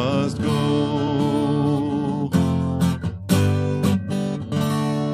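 Steel-string acoustic guitar playing the song's closing bars. A sung note with vibrato holds over it in the first second, then come several strummed strokes about half a second apart and a final chord left ringing.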